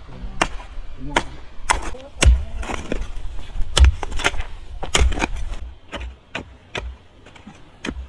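A hand hoe striking hard, stony soil again and again while digging a planting hole, each blow a sharp chop with gravel and clods rattling. The heaviest thuds fall near the middle, and the blows thin out near the end.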